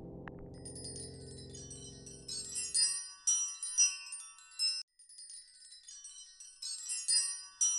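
Soft background music with low held tones fades out about three seconds in, under high tinkling chimes that ring in two clusters with a short gap about five seconds in.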